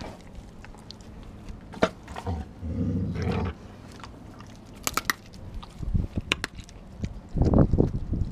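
A dog chewing and crunching raw chicken close up, with sharp crunches about two seconds in and again around five seconds. Heavier low noises come around three seconds and near the end.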